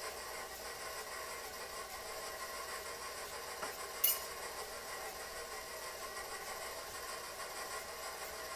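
Electric mixer running steadily at low speed, blending the wet batter ingredients. A single sharp click sounds about four seconds in.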